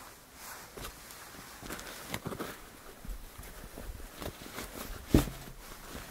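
Hands handling and opening a cloth drawstring pouch: fabric rustling with small irregular knocks and taps, and one louder knock about five seconds in.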